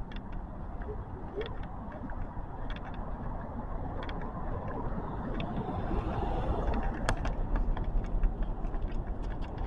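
Street traffic noise, with a vehicle passing that swells about six seconds in and eases off near the end, plus a few faint clicks.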